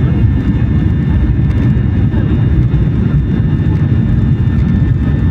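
Airliner cabin noise while taxiing: the engines and rolling make a steady low rumble, with a thin steady whine on top.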